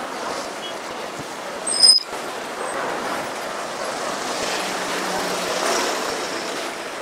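City street ambience: a steady hiss of road traffic, with a brief sharp high-pitched squeak just before two seconds in.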